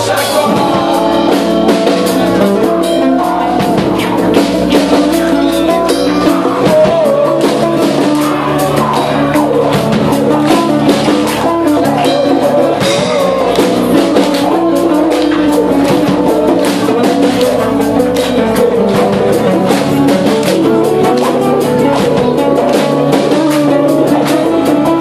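Rock band playing live in a semi-acoustic set: guitars and a drum kit keeping a steady beat.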